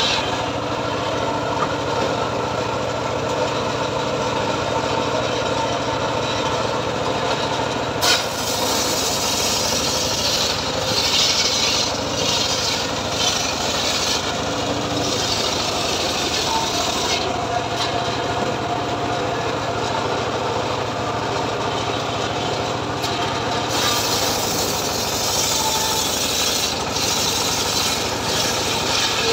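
Homemade circular saw rig running steadily, its blade ripping a teak log lengthwise as the log is pushed through; the sawing hiss swells and eases in stretches over the constant engine drone. A single sharp knock about eight seconds in.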